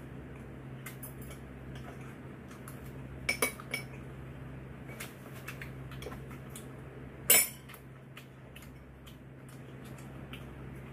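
Cutlery clinking against dishes at a meal: scattered small clicks, a quick run of three sharp clinks about a third of the way in and a single louder clink about two-thirds of the way in, over a steady low hum.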